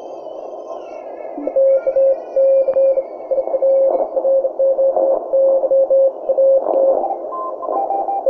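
Shortwave receiver audio on the 20-metre CW band: a Morse code signal keyed on and off as a steady beep over receiver hiss, with faint whistles sliding in pitch early on as the dial is turned. Near the end the tone jumps higher as the tuning shifts.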